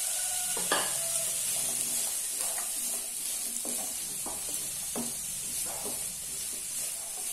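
Cubed bottle gourd sizzling in oil in a non-stick pan while a wooden spatula stirs it, scraping and knocking against the pan about once a second. The gourd is being lightly sautéed.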